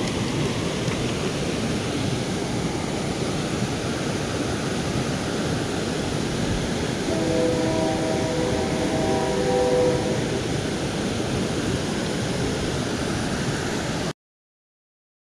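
Steady rushing of water from a small waterfall and rapids, with faint pitched tones about halfway through. The sound cuts off suddenly about a second before the end.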